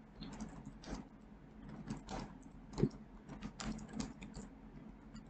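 Typing on a computer keyboard: a run of irregular keystroke clicks, with short pauses between bursts.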